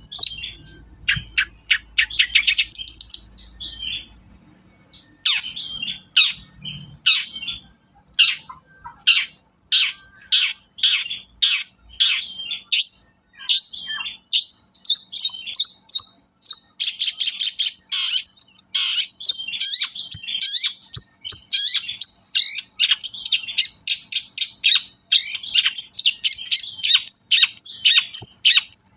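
Long-tailed shrike singing a fast, varied song of short, sharp notes and chatter in quick bursts with brief pauses, becoming almost continuous in the second half.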